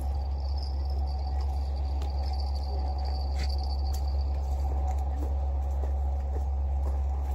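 A steady insect chorus, with a steady low rumble underneath and a few faint clicks.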